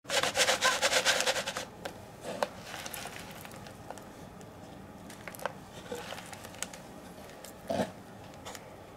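Live giant mealworms (superworms) rustling and crackling against each other and a plastic tub as hands grip the tub and stir through them. A dense crackle fills the first second and a half, then scattered light clicks follow, with a soft bump near the end.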